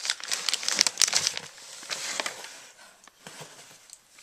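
Clear plastic bag crinkling and crackling as it is handled and pulled out of a cardboard box, busiest for the first two seconds, then quieter with a few scattered crackles.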